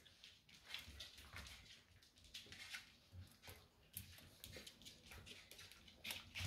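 Faint scuffling and irregular clicks from an adult dog playing with a six-week-old puppy on a hard floor, mouthing and nuzzling it.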